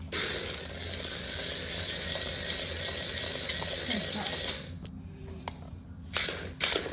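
Small geared electric motors of a Hexbug BattleBots Tombstone remote-control toy whirring steadily as it spins and drives, stopping about four and a half seconds in, followed by a couple of faint ticks and two short bursts near the end.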